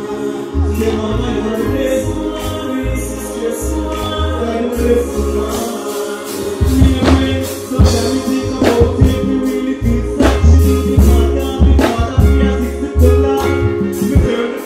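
Live concert music over a stage sound system: a heavy bass line and beat with a performer singing into a microphone over it. Sharp drum hits come through more strongly from about halfway in.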